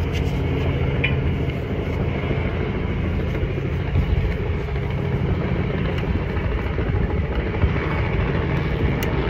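Steady low rumble of a running engine, even throughout, with a couple of faint clicks.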